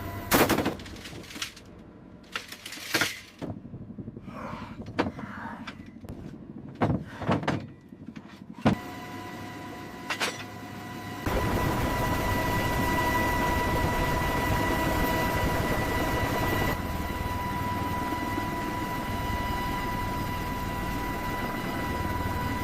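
A string of sharp mechanical clunks and clicks, like latches and hatches being worked. About eleven seconds in, an aircraft engine starts up running steadily with a high whine.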